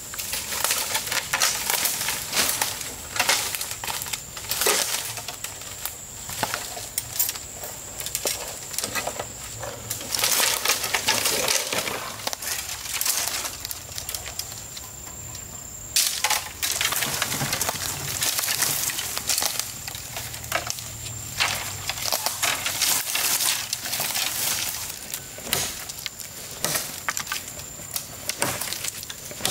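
Irregular crunching and rustling, over a thin steady high-pitched tone that drops out for a while near the middle.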